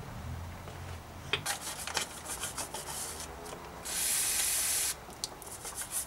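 A stiff brush scrubbing the inside of a corroded aluminium bicycle bottom bracket shell in quick rasping strokes, to clean out the corrosion. About four seconds in, a hiss of spray lasts about a second, then the scrubbing goes on.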